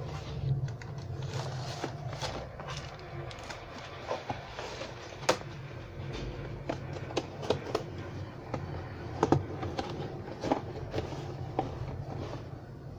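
Cardboard model-kit box and paper instruction sheet being handled: scattered taps, scrapes and rustles as the box is closed up and set down, over a steady low hum.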